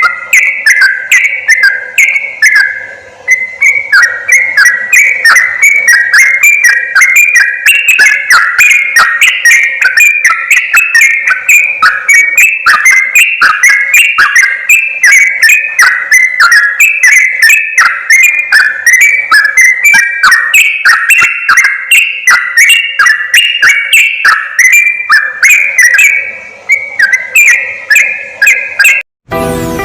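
Yellow-vented bulbul (trucukan) song played as a trapping lure: quick bubbling, chattering phrases that repeat one after another without a break. The song cuts off abruptly near the end and music begins.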